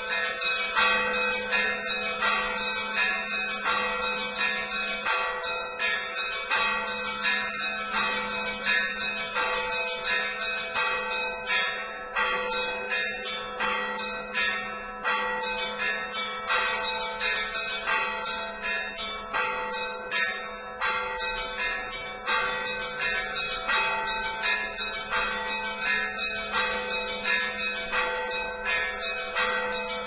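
Russian Orthodox church bells rung in a zvon peal: quick, continuous strikes of small bells over the steady hum of larger bells.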